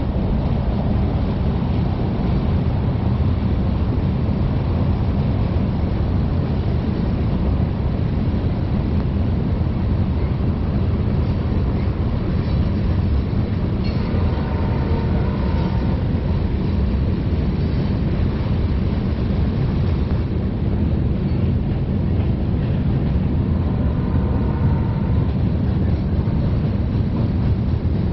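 BNSF manifest freight train's cars rolling past, a steady, continuous noise of wheels on rail.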